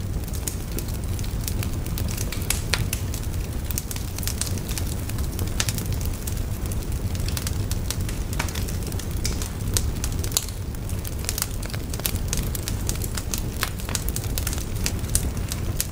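Fire burning: a steady low rumble with frequent sharp crackles and pops.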